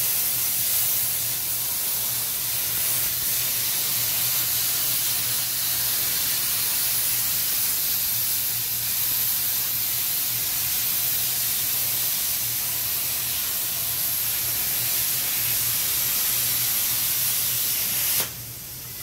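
CNC plasma cutter's torch cutting a 6061 aluminium sheet: the steady, loud hiss of the plasma arc over a low hum, cutting off abruptly near the end as the arc stops.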